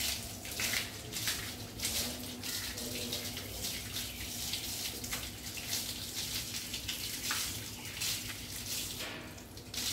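Water from a garden hose running and splashing over a Labrador's wet coat and onto a tiled floor, in uneven splashes as the coat is rubbed and rinsed.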